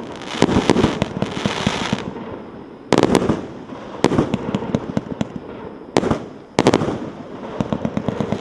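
A 150-shot, 1.2-inch firework cake firing. Sharp launch thumps come in clusters every second or two, each followed by a dense crackle of bursting shells.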